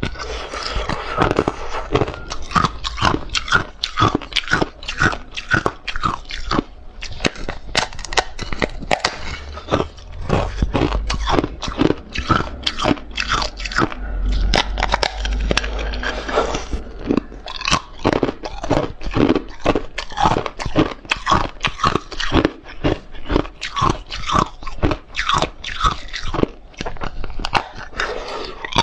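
Thin sheet of frozen carbonated ice being bitten and chewed: a dense, continuous run of sharp crunches and cracks, several a second.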